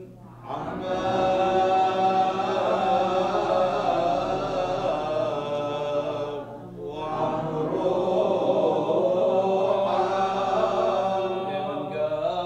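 A man's voice chanting the Gospel reading in Aramaic in long, drawn-out phrases, pausing briefly for breath twice: just after the start and about halfway through.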